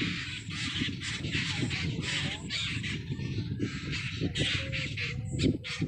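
Birds giving a long run of short, harsh calls, about two a second, over a steady low rumble.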